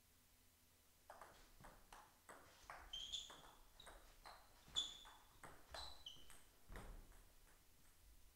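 Table tennis rally: the ball clicks sharply off the rubber rackets and bounces on the Donic table in quick alternation, about three hits a second, some of them ringing with a high ping. The rally stops about seven seconds in, with a low thump near the end.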